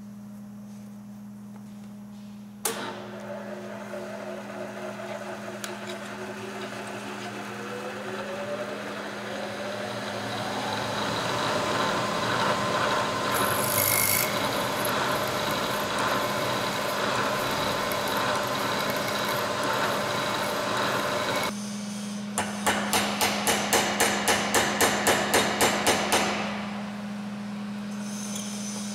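Manual milling machine's spindle starting up and running, its whine rising in pitch as it comes up to speed. Later, about fourteen quick taps of a brass hammer, around four a second, driving a steel pin into a part held in a machine vise.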